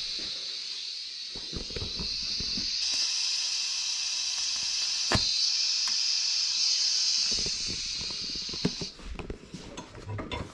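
Steady hiss of shielding gas flowing from a scratch-start TIG welding torch. The hiss gets louder about three seconds in, there is a single click in the middle, and the hiss stops a little before the end.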